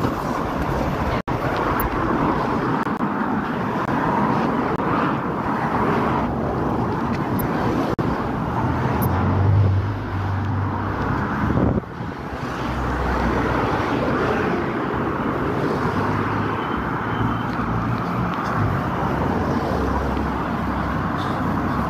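Road traffic: motor vehicles running past on the street, a steady noise with a low engine rumble that grows louder for a few seconds near the middle.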